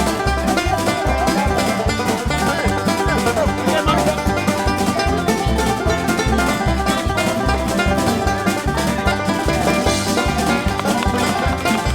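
Upbeat background music with plucked strings, a banjo-like twang, over a steady beat.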